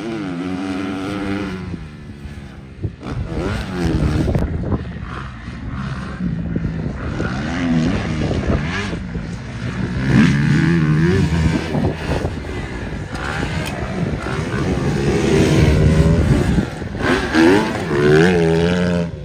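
Motocross dirt bike engines revving as they ride a dirt track. The pitch repeatedly climbs and falls off as the riders open and close the throttle, loudest as they pass close.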